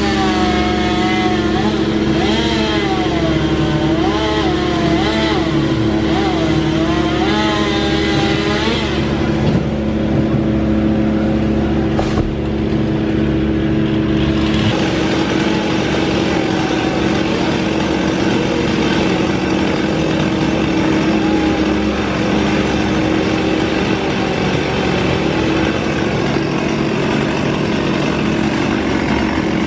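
Tree-removal machinery engine running steadily, with its tone changing about halfway through.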